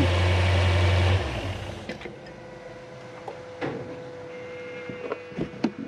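Lexus LS430's 3UZ-FE V8 idling steadily, then switched off about a second in and running down to a stop. A few faint clicks follow in the quiet.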